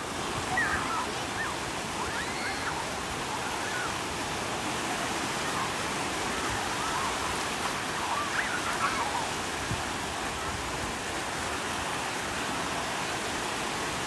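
Small waves breaking and washing through the shallows in a steady rush of surf. Faint distant shouts of people in the water rise over it about a second in and again around eight seconds in.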